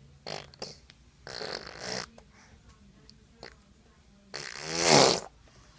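Young child making three noisy, spluttering mouth sounds like blown raspberries. The third, about four seconds in, is the longest and loudest and drops in pitch.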